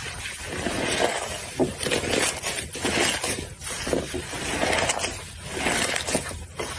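Slime being squeezed and worked by hand, giving dense crackling and popping in swells about once a second.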